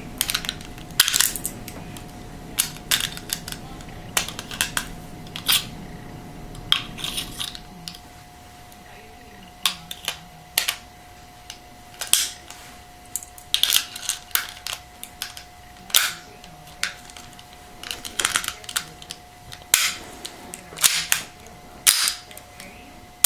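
Ruger Mark III .22 pistol being field-stripped and reassembled at speed: a quick, irregular run of sharp metallic clicks and clacks as its steel parts are pulled apart, slid and snapped back together.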